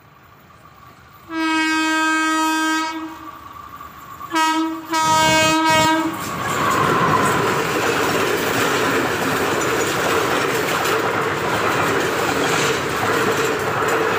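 Passenger train horn blown three times: one long blast of about two seconds, a short toot, then a blast of about a second. Then the train passes close by at speed, its wheels clattering steadily over the rails.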